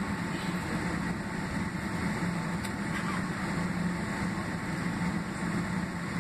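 Steady cabin noise inside a Boeing 767-300ER during taxi: its General Electric CF6-80C2B6 turbofan engines running at taxi power, heard through the fuselage as an even rush with a steady low hum.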